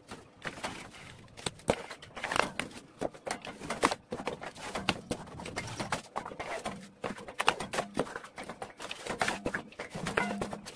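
Irregular knocks, taps and clatter from a hand-cranked hardcover roll press being worked, as the crank is turned and cover boards are picked up and laid on the feed table.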